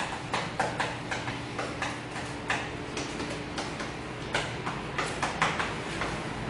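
Chalk tapping and scraping on a blackboard as a line of text is written: short, irregular clicks several times a second. A low steady hum runs underneath.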